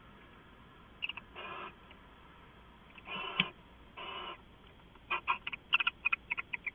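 Pair of barn owls calling in their nest box: three short breathy, hiss-like calls, then about two seconds in from the end a fast run of sharp chittering notes, several a second.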